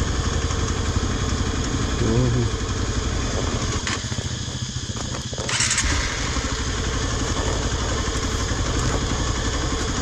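Hero Xpulse 200's single-cylinder engine running steadily at low revs in first gear, engine braking on a slow downhill descent of a dirt track. A brief louder rush comes a little past halfway.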